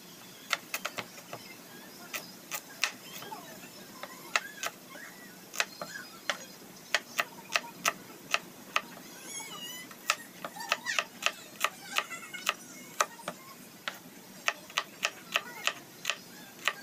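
Kitchen knife knocking on a wooden chopping board in short, sharp, irregular taps as small red onions are sliced by hand.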